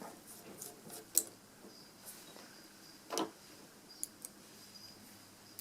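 Faint, scattered clicks and ticks of a small screwdriver working the tiny screws inside a Nexus 7 tablet, with sharper clicks about a second in and about three seconds in.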